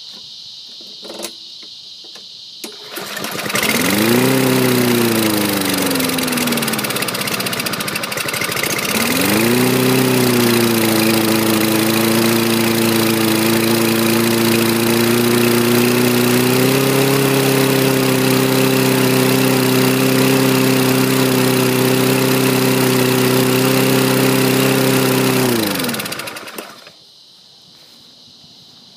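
Lawn-Boy mower's 149cc Kohler XT engine pull-started. The first time it catches, rises and falls away within a few seconds; the second time it keeps running steadily at an extremely high idle that steps up once partway through, then winds down and stops near the end. The owner puts the stalling and high idle down to a dirty carburettor and something not freeing up on the governor.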